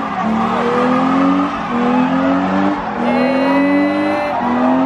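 A car engine revving hard over and over, its pitch climbing for about a second and then dropping back, roughly four times, over the hiss and squeal of spinning tyres, as in a burnout or donuts.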